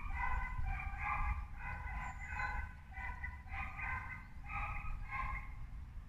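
An animal calling over and over in short pitched calls, about two a second, with a steady low rumble underneath.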